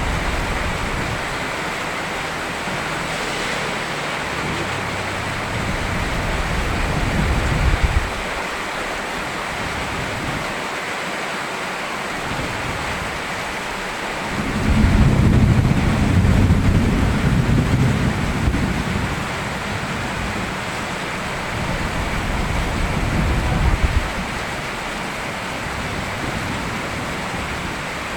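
Steady rain with deep rolls of thunder rumbling several times, the loudest roll a few seconds long about halfway through.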